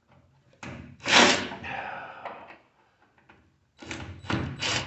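Knocks and clatter from handling a microwave oven's sheet-metal cabinet during teardown: one loud knock about a second in, and a run of sharper knocks near the end.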